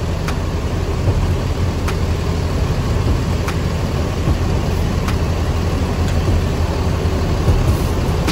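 Coach bus's diesel engine running low and steady at slow speed as the bus pulls forward out of its parking spot.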